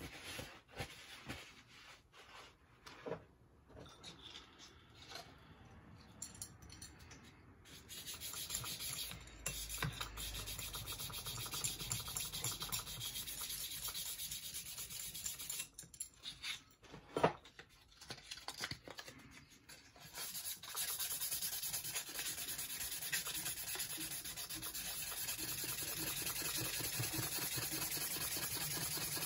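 Rusty steel face of a small anvil being sanded by hand: light handling clicks at first, then steady scratchy rubbing strokes from about eight seconds in. The rubbing breaks off with a sharp click partway through, then resumes and keeps going.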